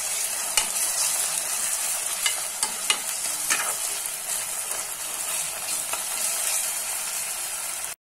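Chopped onions, curry leaves, green chillies and freshly added ginger-garlic paste sizzling in hot oil in a pressure cooker, frying until the raw smell of the paste goes. A metal spoon stirs the mix, scraping and clicking against the pot a few times in the first few seconds. The sound breaks off for a moment near the end.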